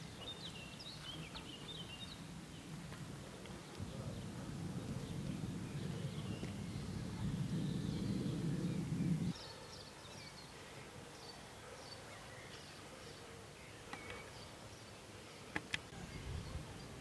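Outdoor ambience with faint high chirps from small birds now and then. A low steady rumble swells in the middle for about five seconds and cuts off suddenly, and two sharp clicks come near the end.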